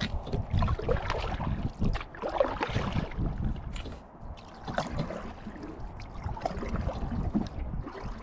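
Kayak paddle strokes through calm creek water: the blade dipping and splashing, with water dripping and trickling off it and wind rumbling on the microphone.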